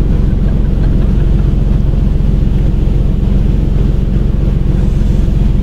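Marine diesel engine of a fishing vessel running steadily: a low, even drone with a fast regular pulse.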